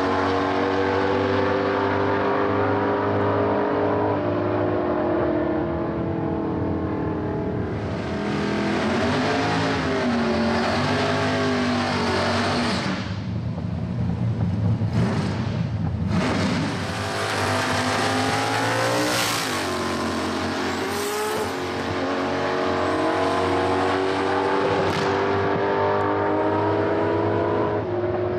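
V8 engine of a drag-racing Holden Commodore running hard, its pitch rising and dropping again and again through the pass. About halfway through comes a louder, rougher burst of engine and tyre noise at the start line.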